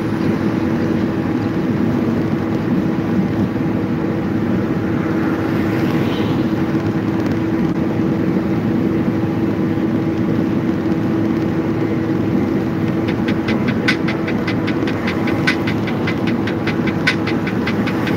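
Tow truck driving at highway speed: steady engine and road noise with a low hum. About three-quarters of the way through, a fast, irregular clicking rattle joins in.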